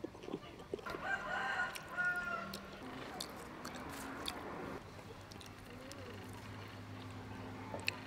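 A rooster crows once, starting about a second in and lasting about two seconds, with a few faint clicks around it.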